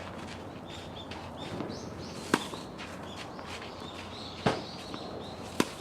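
Three sharp tennis ball impacts, hits off the racket or bounces on the court: the first a little over two seconds in, then two more about a second apart near the end. Small birds chirp throughout.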